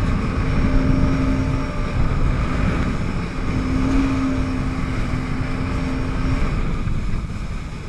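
Yamaha WaveRunner jet ski engine running under throttle, a steady hum over heavy wind buffeting on the camera microphone and water rush. Near the end the engine tone drops away and the sound eases as the craft slows.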